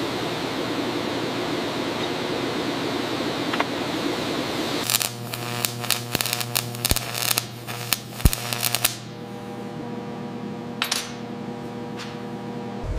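Steady hiss, then a MIG welder crackling and spitting for about four seconds with several sharp snaps, as the torch fuses heavy steel. It gives way to a low, steady hum.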